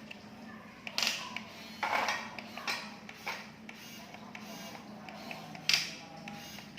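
Small electric toy motor whirring steadily, with several short loud rustling or clattering noises about a second in, around two to three seconds in, and near the end.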